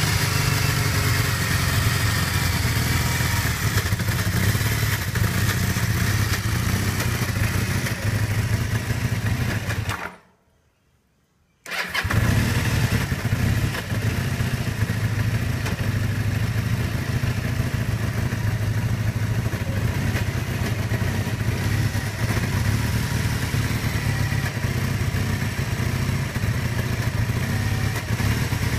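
1981 Kawasaki KZ440 motorcycle's parallel-twin engine idling roughly with the choke about half on. A little over ten seconds in, the sound breaks off to near silence for about a second and a half, then the engine is heard running again.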